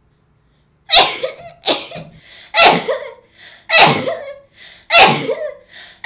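A woman sneezing five times in a rapid fit, about one sneeze a second, each sharp and loud, with short catching breaths in between.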